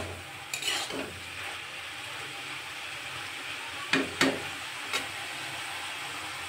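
Metal spatula stirring and scraping brinjal and dried shrimp around a kadai over a steady frying sizzle, with a few sharper scrapes about half a second in and again around four and five seconds.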